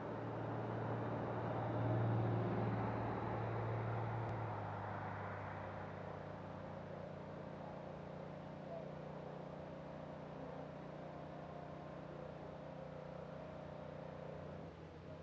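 A motor vehicle's engine running with a steady low hum, louder about two seconds in and then easing off.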